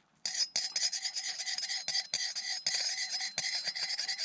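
A thin metal stick scraping round and round a large metal spoon while stirring boiling heroin in it: a dense, continuous metallic rasp that starts a moment in.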